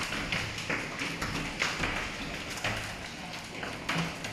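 Hail falling hard, with irregular sharp taps of hailstones striking hard surfaces over a steady hiss of heavy rain.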